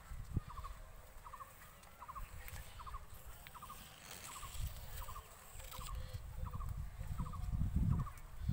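A faint, quick three-to-four-note chirp repeating evenly about every three quarters of a second, over a low, uneven rumble on the microphone that grows louder in the last few seconds.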